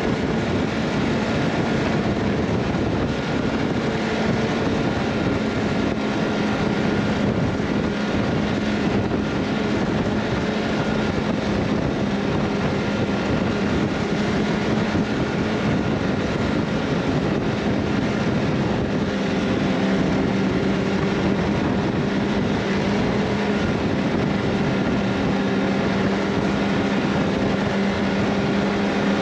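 A vehicle's engine running at a steady speed, with a steady hum under a constant rush of wind and road noise.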